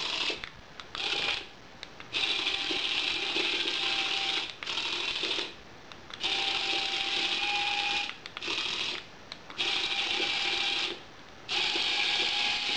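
The small electric motor of a remote-controlled Skitterbot toy whirring as it is driven across a wooden floor, a buzzing whir with a steady whine under it. It goes in start-stop runs of one to two and a half seconds with short pauses between, about six or seven times.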